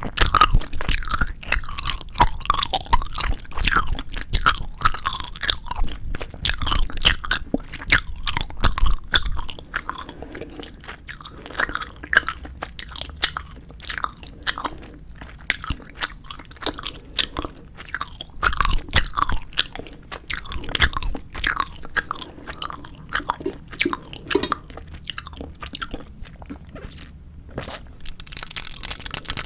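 Close-miked chewing and biting of 4D gummy jelly candies: many quick, irregular mouth and teeth clicks, busiest in the first ten seconds.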